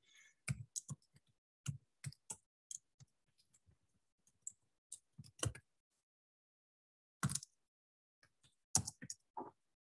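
Quiet, irregular keystrokes on a computer keyboard as a short variable name is typed. The clicks come in small clusters with pauses between them, the longest pause just past the middle.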